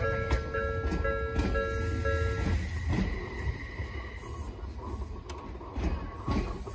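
Level-crossing warning bell ringing in a repeating electronic ding, stopping about two and a half seconds in, over the low rumble of an Odakyu 3000-series electric train pulling slowly away.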